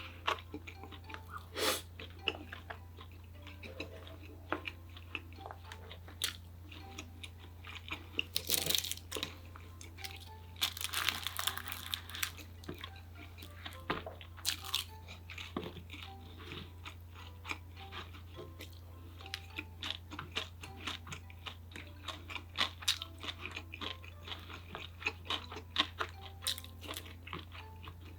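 A person chewing and crunching food, with many small crisp clicks of bites and chews and a louder, noisier stretch about eleven seconds in. A steady low hum runs underneath.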